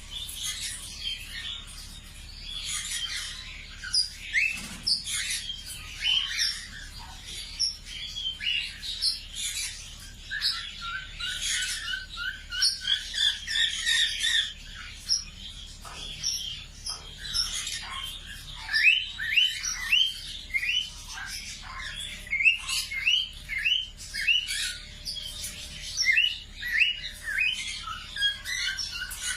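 A flock of budgerigars chirping and chattering together, a dense stream of short overlapping warbles and quick rising chirps.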